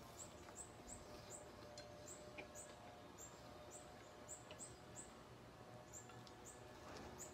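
Faint high chirps from a small bird, short and falling in pitch, repeated about three times a second with a couple of brief pauses, over quiet outdoor background.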